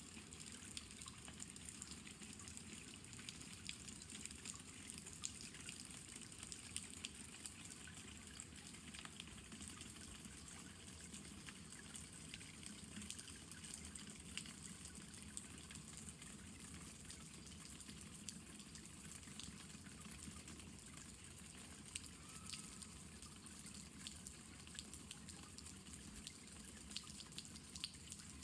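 Steady light rain: a soft even hiss dotted with the ticks of single drops landing.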